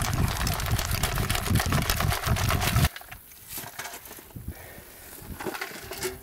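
Dry soil and pebbles rattling and hissing through a metal mesh sieve as it is shaken, a dense gritty clatter that stops abruptly about three seconds in. Faint scattered scrapes and ticks of soil follow.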